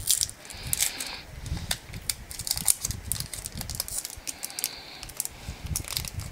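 Foil trading-card booster pack being torn open by hand: the wrapper crinkles and tears in a steady run of small crackles and clicks, with two short tearing rips, one about a second in and one after about four seconds.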